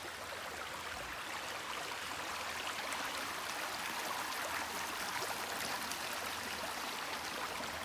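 Steady rush of a waterfall, water splashing continuously with no pauses.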